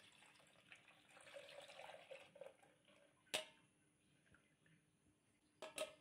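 Milk pouring from a steel pan through a plastic mesh strainer into a plastic jug: a faint liquid trickle that tails off after about two and a half seconds. A sharp click follows, and two more clicks come near the end.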